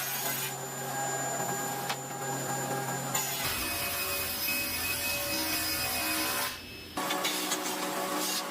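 Woodworking power tools running in several short clips, the sound changing abruptly about a third of the way in and again near the end.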